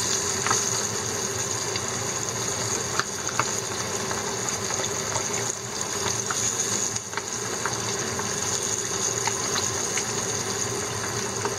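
Split horse mackerel deep-frying in hot oil in a frying pan: steady sizzling and bubbling, with scattered small pops and crackles.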